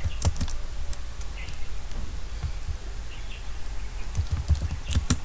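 Computer keyboard keys clicking as text is typed: a few scattered keystrokes, then a quicker run of clicks near the end, over a steady low hum.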